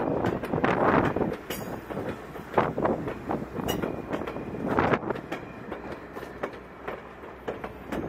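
Passenger coaches of a heritage steam train rolling past at close range: a steady rumble of wheels on the rails with irregular clacks as the trucks cross rail joints.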